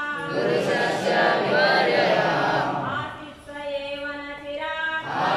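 A group of voices chants a line of a Sanskrit verse in unison, repeating it after the leader. From about three and a half seconds in, the leader's single voice chants the next line alone into a microphone.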